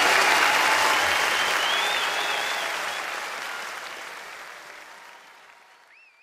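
Live concert audience applauding and cheering, with a few high whistles, fading out steadily to silence.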